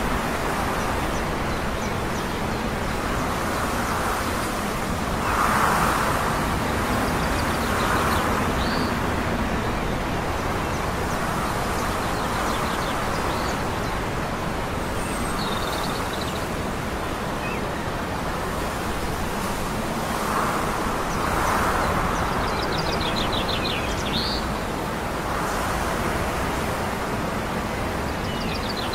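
Steady hum of distant town traffic heard from high above, swelling a little a few times, with short bird chirps now and then.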